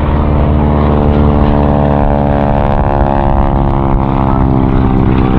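Stearman biplane's radial engine and propeller running loud in flight, its pitch sagging about halfway through and climbing back toward the end.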